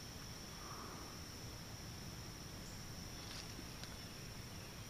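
Faint insect chorus in the woods, a constant high-pitched drone, with a couple of light ticks about three and a half seconds in.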